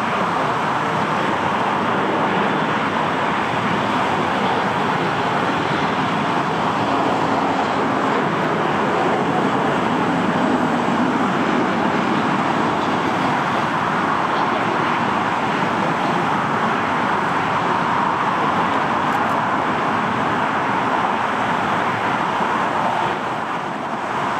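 Airbus A380's four jet engines running at low taxi power as the airliner rolls slowly along the runway, giving a steady, even rush of engine noise.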